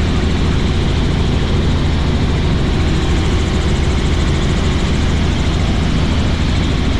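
Helicopter in flight: a steady, loud drone of rotor and engine with a deep low hum.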